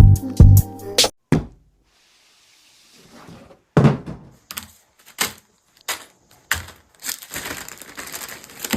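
Music with a strong beat stops about a second in. After a brief near-silence, a string of separate knocks and thuds follows, then a steady hiss with more knocks near the end.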